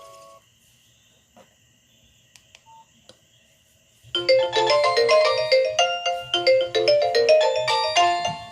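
Ringtones played on a Nokia 6085 mobile phone. The tail of one tune fades out and cuts off, then a near-silent pause with a few faint clicks. About four seconds in, a new ringtone starts loud: a quick melody of short notes over a bass line.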